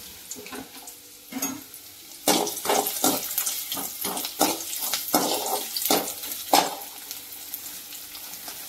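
Chopped onion sautéing in hot oil in a metal kadai, with a steady sizzle. A slotted metal spoon stirs it, scraping and knocking against the pan in a run of strokes through the middle, the last one the loudest.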